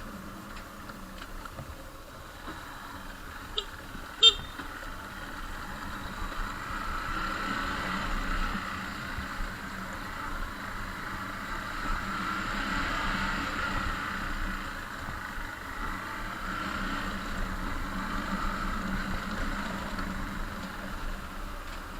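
Steady road-traffic hiss that swells and fades several times, with two sharp clicks a little under a second apart about four seconds in.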